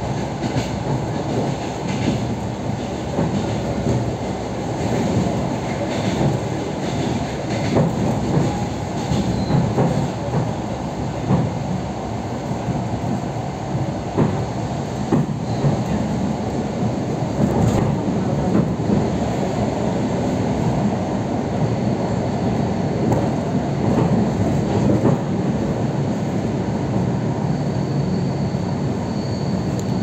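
Running noise of an electric commuter train at speed: a steady rumble of wheels on rail with scattered clicks over the rail joints, and a faint high squeal near the end.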